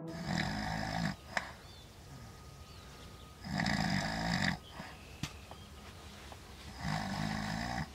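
A man asleep and snoring: three snores, each about a second long, about three and a half seconds apart.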